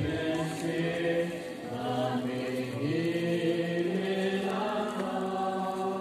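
Voices singing a slow hymn or chant together on a single melody line, with long held notes.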